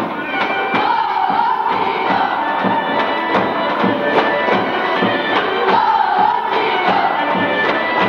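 Bulgarian folk dance music with a steady beat and a wavering melody line.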